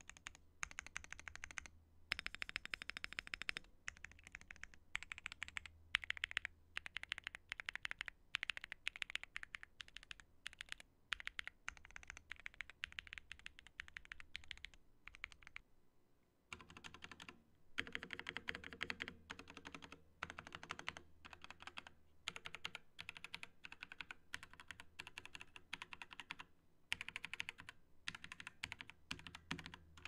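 Mechanical keyboard typing test: rapid, continuous keystrokes on a board fitted with Gateron Baby Kangaroo 2.0 switches. About halfway in, after a brief pause, the typing moves to a second keyboard with Cherry Red switches, whose clacks sound fuller and lower.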